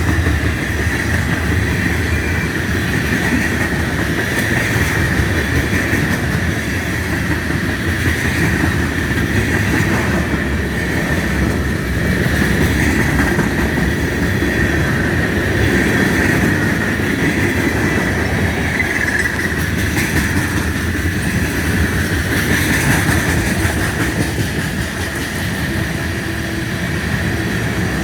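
Long manifest freight train rolling past at slow speed: a steady rumble of freight cars on the rails with a constant high-pitched wheel squeal.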